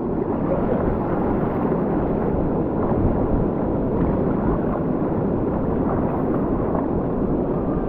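Steady wind noise rumbling on the microphone, mixed with the wash of surf.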